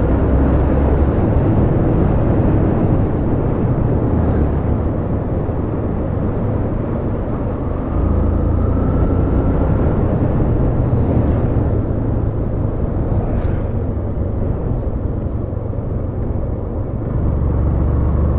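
Steady engine and wind noise of a vehicle on the move, heard from on board, with a deep rumble that swells and eases every few seconds.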